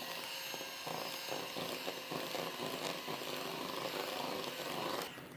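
Electric hand mixer whirring steadily as its beaters whisk cake batter in a plastic bowl, stopping near the end.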